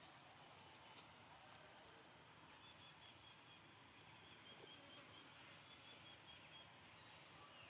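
Near silence: faint forest ambience, with a faint, steady high tone from about two and a half seconds in and a quick run of tiny high chirps about five seconds in.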